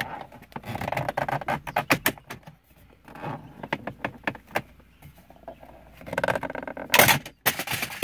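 Plastic dash trim bezel of a 2013 Chevrolet Sonic clicking and rattling as it is pulled loose from its clips by hand. Near the end it pops free with a loud clatter and falls into the footwell.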